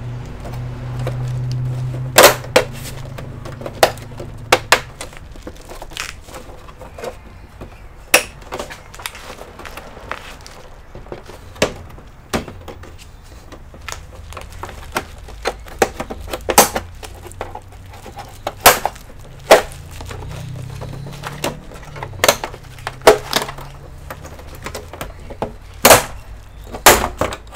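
Irregular sharp clicks, taps and knocks of hard computer parts and tools being handled on a workbench, a loud one every second or two.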